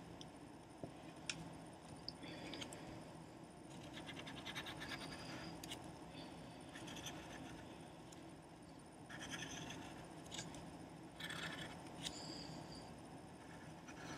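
Pencil scratching on paper in short runs of sketching strokes, with a couple of light ticks, faint over a steady low hum.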